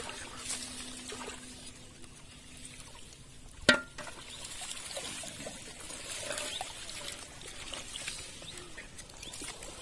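Pond water splashing and trickling as plastic-bottle fish traps are lifted and handled in the shallows. A little under four seconds in comes a single sharp knock with a brief ring, a bottle landing in an aluminium basin.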